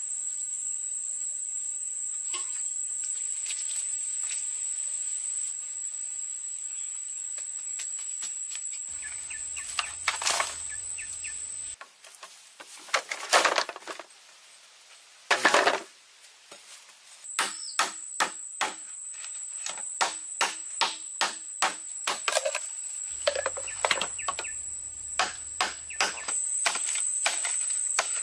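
Steady high-pitched insect drone that drops out for a few seconds in the middle. Repeated sharp knocks come about one to two a second in the second half, and two louder, noisier sounds of about half a second each fall in the gap.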